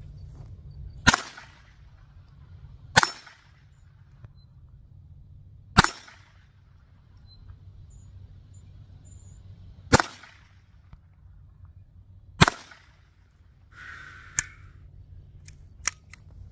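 Five single gunshots fired one at a time, two to four seconds apart, each a sharp crack with a short echo. Two fainter sharp cracks follow near the end.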